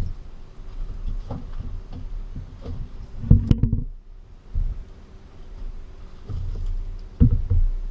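Knocks and thumps of gear being handled on a small boat while shrimp are hand-sorted on a culling tray, with small clicks and rustling from the sorting; the loudest thumps come about three seconds in and again near the end, over a faint steady hum.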